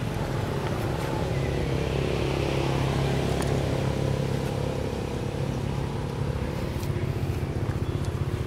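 A motor engine running steadily, a low hum that pulses quickly toward the end.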